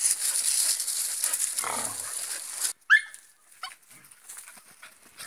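A rustling hiss that cuts off abruptly, then a Samoyed puppy gives one sharp yip about three seconds in and a fainter second yip just after.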